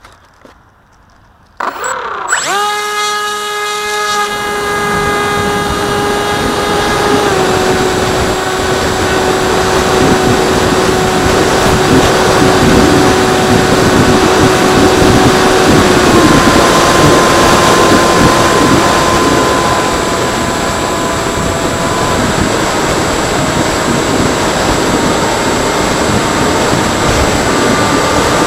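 Electric motor of a Freewing Seagull RC plane spinning up about one and a half seconds in to a high steady whine, the pitch stepping down a few times as the throttle changes, over a constant rush of air.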